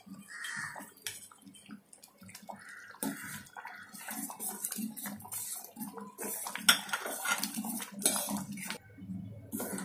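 Steel ladle clinking and scraping against a stainless-steel pot as semolina is stirred into hot jaggery syrup, in quick irregular strokes that come thickest in the second half.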